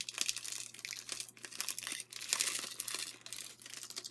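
Clear plastic bag crinkling as it is handled and a card of stick pins is worked out of it, a continuous crackle that is loudest a little past the middle.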